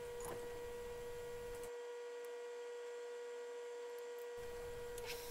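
Steady, low-level electrical hum: one even tone with a few overtones above it. A faint click comes about a third of a second in, and the low background noise drops out for about two and a half seconds in the middle while the hum carries on. No machining sound.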